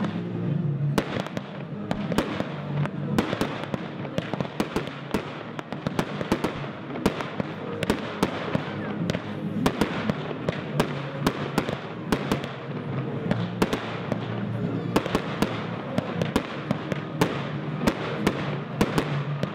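Aerial fireworks firing and bursting in rapid succession: a dense run of sharp bangs and crackles, several a second, with no pause.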